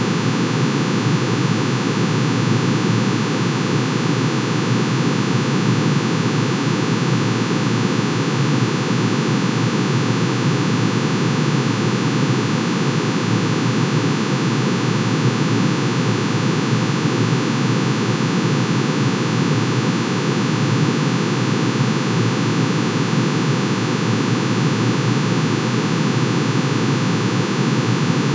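Synthesized drone made by summing one sine wave for each line of manganese's atomic emission spectrum, pitch-shifted into the audible range. It sounds as a dense, steady hiss-like wash with many fixed tones inside it, unchanging throughout.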